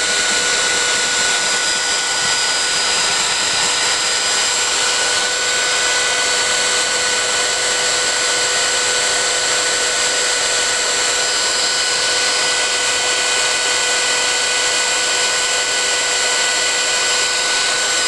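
Handheld hot-air blower running steadily on heat, a constant rush of air with a steady motor whine, as it heats heat-transfer vinyl onto a metal tumbler.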